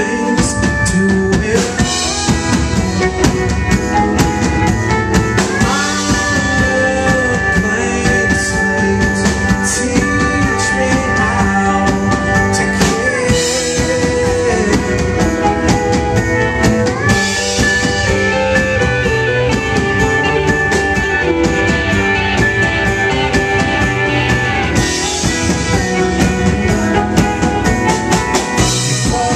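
Live rock band playing with drum kit, electric guitars and bass, with held notes that slide in pitch over a steady drum beat.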